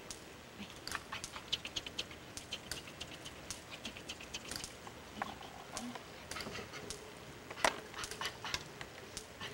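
Irregular soft smacking clicks, several a second, with one louder smack about two-thirds of the way through: lip-smacking during close grooming of a chimpanzee.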